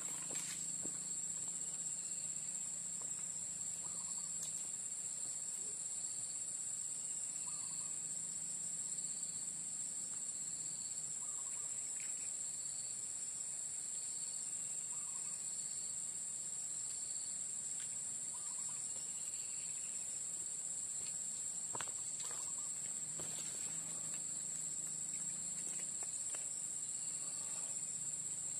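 Insects droning steadily in one high-pitched whine, with faint short chirps repeating every second or so and a few light clicks.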